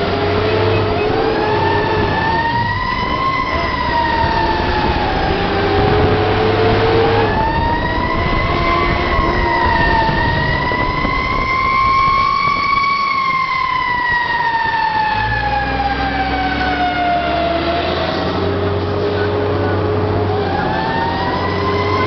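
Fire engine siren wailing, its pitch slowly rising and falling over several seconds, with the truck's engine running underneath.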